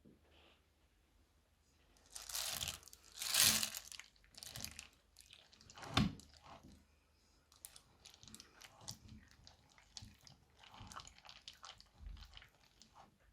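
Crunchy slime being pressed and squeezed by hand, giving a run of crackles and crunches. The loudest come a couple of seconds in, with one sharp crack about six seconds in, then many smaller crackles.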